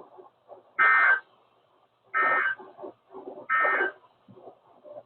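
Emergency Alert System SAME end-of-message data signal: three short bursts of digital two-tone data, each about half a second long and about a second and a half apart, marking the end of the alert.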